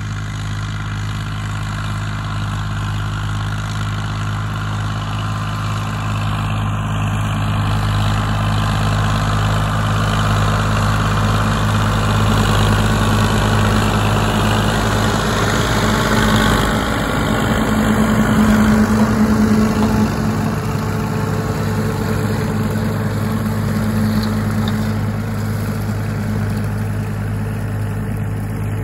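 Massey Ferguson 250 tractor's three-cylinder Perkins diesel running steadily under load while driving a Fleming rotary grass topper through long grass. It grows louder as the tractor passes close, is loudest around the middle, then drops back as it moves away.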